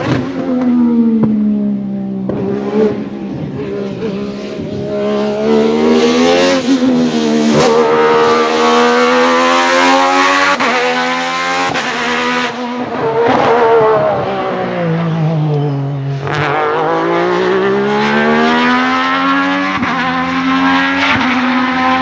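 Alfa Romeo 155 V6 TI DTM race car's V6 engine running hard on track, its pitch repeatedly rising and falling with engine speed. It is loudest about halfway through and drops lowest about three quarters of the way through before climbing again.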